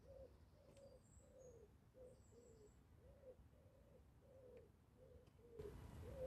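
Faint cooing of a pigeon, a steady run of soft repeated coos, with a few faint high chirps from small birds. Outdoor background noise rises near the end.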